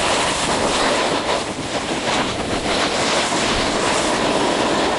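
Snowboard edges scraping and hissing over packed snow while riding downhill, with wind rushing over the microphone.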